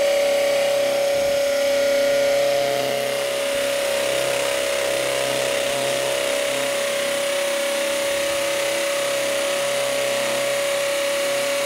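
DeWalt brushless hammer drill, set to speed 2, boring into a concrete block with a masonry bit: the motor and hammer action run continuously under load with a steady hum over the grinding of the bit.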